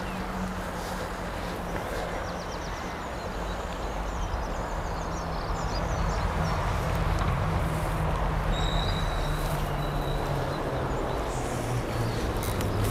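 Wind gusting across the microphone over the rush of a flowing river, with a low droning hum that slowly drops in pitch and a few faint bird chirps.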